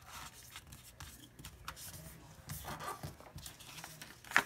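Sheet of lined paper rustling and crinkling as it is folded by hand and the crease pressed down, with a short sharp crackle near the end.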